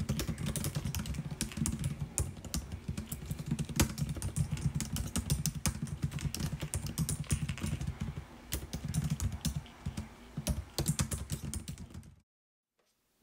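Typing on the built-in scissor-switch keyboard of a 2021 14-inch MacBook Pro: fast, irregular key clicks, a little lighter toward the end, then cutting off abruptly about a second before the end.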